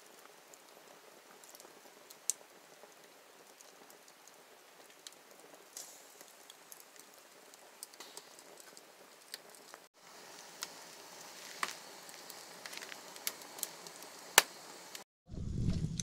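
Wood fire burning in a fireplace: a soft, steady hiss with scattered sharp crackles and pops, one loud pop near the end. Just before the end it cuts to a louder low rumble.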